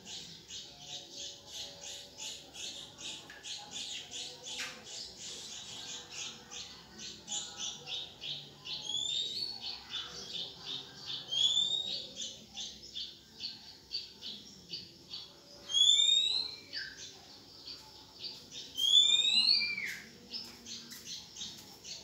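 Red-whiskered bulbul nestlings begging while an oriental magpie-robin feeds them: a steady run of short, high chirps, several a second. Four louder rising whistled bird calls break in, about nine, eleven, sixteen and nineteen seconds in.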